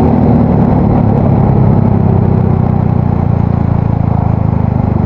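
Yamaha Mio Soul GT scooter's single-cylinder four-stroke engine running steadily through an aftermarket exhaust, a low, deep exhaust note.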